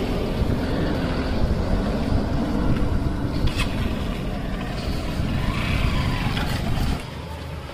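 A road vehicle running, a steady noise heaviest at the low end that drops off suddenly about seven seconds in.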